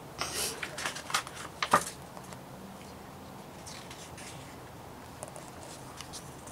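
Pages of a paperback picture book being turned and handled: a cluster of paper rustles and flaps in the first two seconds, then a few softer rustles.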